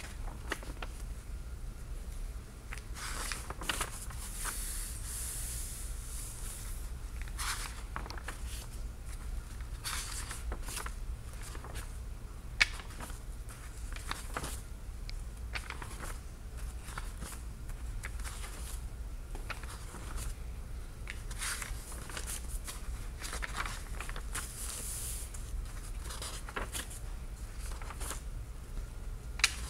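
Paper pages of a large bound book being turned one after another, each a brief papery swish at an irregular pace, with a sharp click twice. A steady low hum runs underneath.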